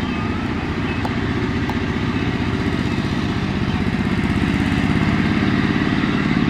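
Kubota RT140 walking tractor's single-cylinder diesel engine running under load with a fast, even thump as it pulls a trailer full of rice sacks. It grows louder over the last couple of seconds.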